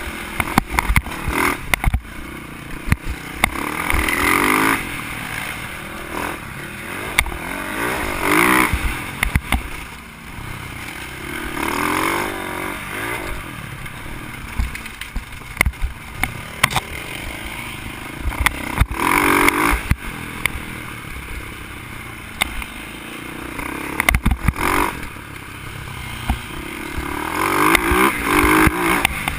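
Dirt bike engine heard through a helmet-mounted camera while riding a rough dirt trail, revving up and easing off repeatedly as the rider works the throttle. Frequent short knocks and rattles come from the bike bouncing over the bumpy ground.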